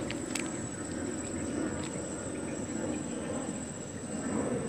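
A steady, thin, high-pitched insect trill over a low, even background hum, with a couple of faint clicks just after the start.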